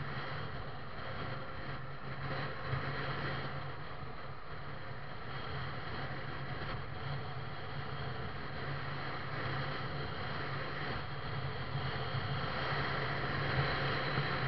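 Motorcycle engine running steadily while riding on the road, under a steady rush of wind noise that grows a little louder near the end.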